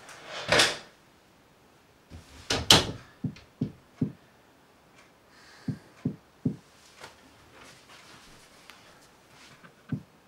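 Footsteps on a floor, short low thumps in little runs of three, with a door being handled: a noisy swish just after the start and a louder double knock-like sound about two and a half seconds in.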